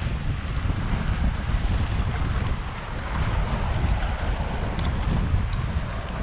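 Wind buffeting the action camera's microphone: a heavy, fluttering low rumble with a steady rushing hiss over it.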